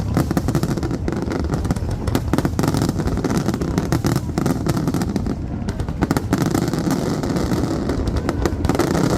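Fireworks going off in a dense, continuous barrage of crackling pops and bangs.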